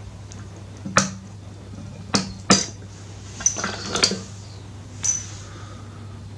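About six sharp metallic clinks spread over several seconds, as the worn rear brake pads are handled and slid out of the caliper on a 2004 Harley Sportster.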